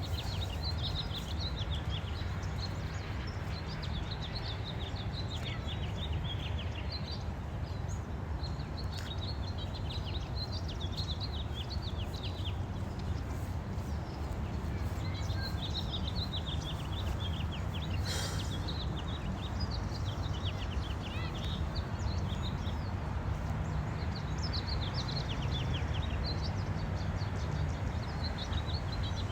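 Small birds chirping and twittering in repeated bursts of quick high calls over a steady low rumble, with a brief scratchy noise about eighteen seconds in.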